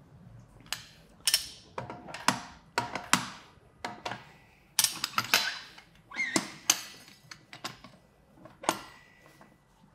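Irregular metal clanks and clicks from a manual motorcycle tire changer and its tools being handled and set up for dismounting the tire, a dozen or so sharp knocks, some ringing briefly.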